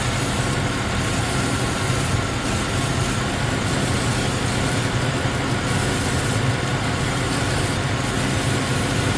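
1999 GMC Sierra V8 idling steadily after a cold start, misfiring on cylinder 8, a fault traced to a leaking intake manifold.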